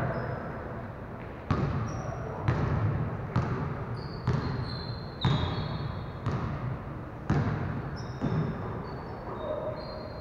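Basketball being dribbled on a hardwood gym floor, sharp bounces about once a second that ring on in the large hall, with short high squeaks of sneakers on the court.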